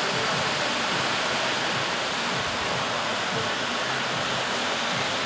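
Helicopter flying over the area: a steady rushing noise with a low, wavering drone from its rotor and engine.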